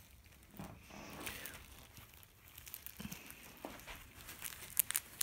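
Faint rustling and crinkling of plastic wrapping and crinkly catnip toys being handled, with a few sharper crinkles near the end.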